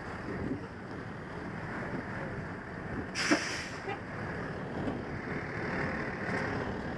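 Fire engine running with a steady rumble and rushing wind noise on the helmet microphone, with one sharp knock about three seconds in.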